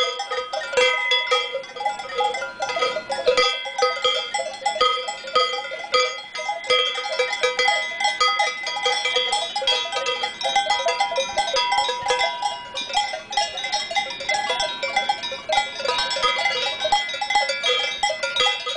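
Cowbells on grazing cattle clanking continuously and irregularly. Several bells of different pitches ring over one another as the cows move their heads while grazing.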